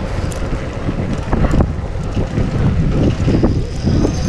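Wind blowing across the microphone of a camera carried on a moving bicycle, a loud, uneven low rumble.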